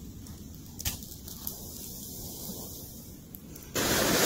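A few faint clicks from the campfire and the stick in the coals, then near the end a sudden steady rush of breath blown through a blow tube into the campfire coals to fan them into flame; the blowing is the loudest thing.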